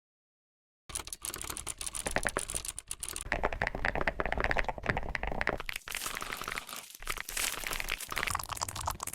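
Rapid typing on a computer keyboard: a dense, fast clatter of keystrokes that starts about a second in, its texture shifting a couple of times.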